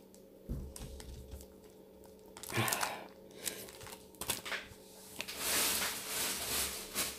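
Clear plastic sticker packaging crinkling and rustling as it is handled and set down. A low bump comes about half a second in, a short crinkle a couple of seconds later, and a longer rustle in the second half.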